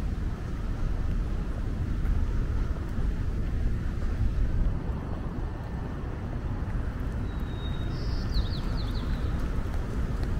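Steady low rumble of wind and distant engine noise. About eight seconds in comes a brief high chirping call of a few quick falling notes.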